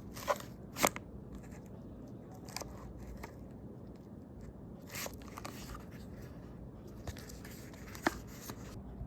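Cardboard being handled, with short scraping rustles and a few sharp clicks, the loudest just under a second in and another about eight seconds in.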